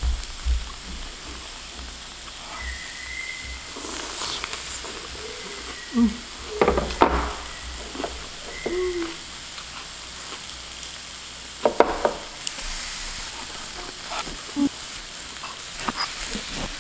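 Zucchini slices sizzling steadily on a hot round grill pan, with a few sharp clicks and knocks about six and twelve seconds in.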